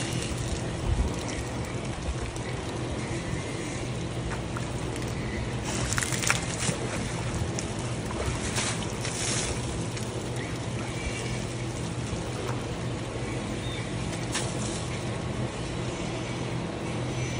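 Asian elephant's trunk splashing in a muddy puddle, several brief splashes, over a steady low motor-like hum.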